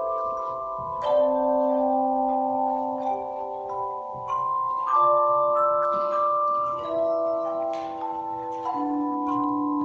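Handbell choir playing: several bells are struck together every second or so, and each clear note rings on for seconds, so the notes overlap into sustained chords.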